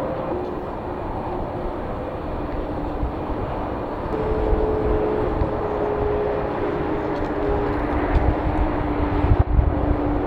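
Jet airliner's engines passing close by: a steady rushing noise carrying a couple of droning tones that sink slightly in pitch. Low buffeting thumps come in near the end.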